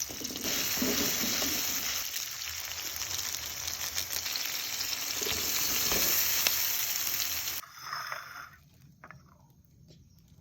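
Fried nasi ampok (corn rice) sizzling in a hot pan, with faint scraping of stirring. It cuts off suddenly about seven and a half seconds in, leaving a few quieter, scattered sounds.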